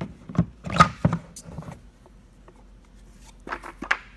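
Clicks and knocks from a prosthetic socket and its shuttle lock parts being handled: a quick run of them in the first two seconds, then a couple more near the end.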